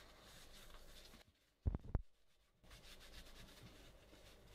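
Paper towel soaked in glue remover rubbing on a compact camera's body, wiping off its sticky, degraded rubber coating: a faint, steady scrubbing. About a second and a half in it stops briefly, with two short low thumps close together, then starts again.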